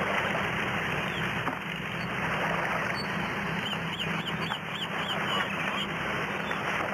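Paper wrapping rustling as a framed painting is unwrapped, over a steady background hiss. In the middle, a quick run of about seven short bird squawks sounds in the background.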